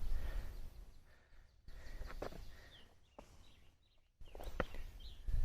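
Low rumble of wind on the microphone, dying away after about a second. Then a few light clicks or taps and a couple of short, faint bird chirps.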